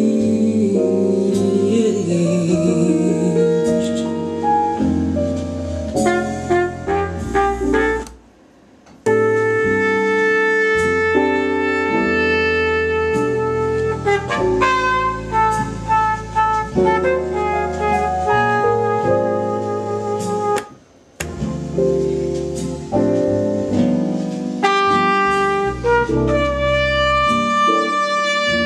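Instrumental jazz with saxophone and piano, cutting out briefly twice, about eight and twenty-one seconds in.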